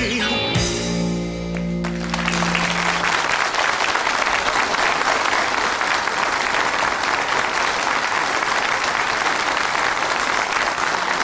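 A rock band with electric and acoustic guitars and drums ends a song on a held chord that fades within about three seconds, as a studio audience starts applauding. The applause goes on steadily.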